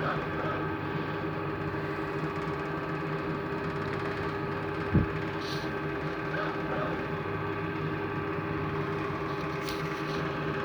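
TMR feed mixer running with a steady mechanical hum, with one sharp knock about five seconds in.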